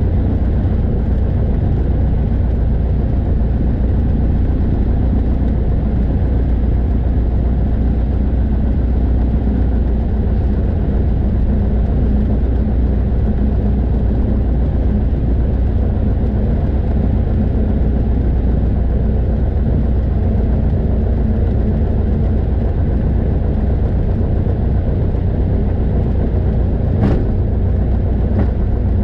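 Single-engine propeller airplane's piston engine running steadily at low taxi power, a deep drone. Near the end come two short sharp knocks as the wheels run over a runway centre-line reflector.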